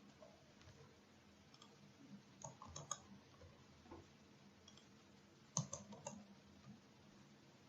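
Faint clicking at a computer, in two short clusters about two and a half and five and a half seconds in, over near-silent room tone.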